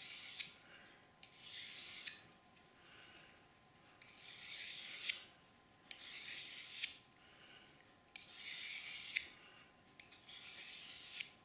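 Knife blade drawn stroke by stroke along a folding pocket diamond sharpening steel, honing the edge: about six rasping strokes of about a second each, some starting or ending with a sharp click.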